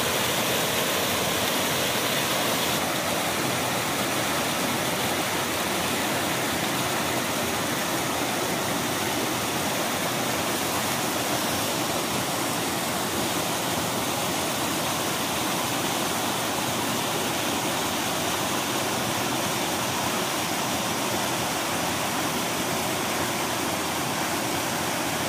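River water rushing over rock slabs in a small cascade, a steady, even rush of water.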